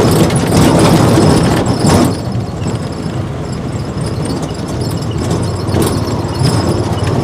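Noise of a moving vehicle on the road: a dense, steady low rumble of engine, road and wind, with a couple of brief knocks.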